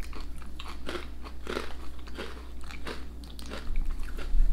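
Biting and chewing crisp, ridged ancient-grain snack chips: a run of irregular crisp crunches.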